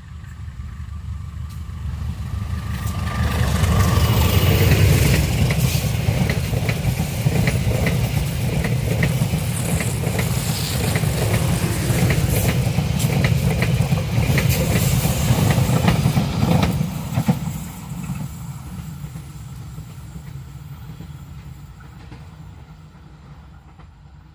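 Passenger train with a diesel locomotive climbing past under load: the locomotive's engine builds up loud, then a long run of sharp clicks and knocks from the wheels as the carriages go by, fading away from about 17 seconds in.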